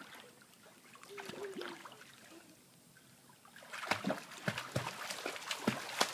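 Pool water splashing as a child kicks her legs while swimming on an inflatable float, a quick uneven run of splashes starting a little past halfway.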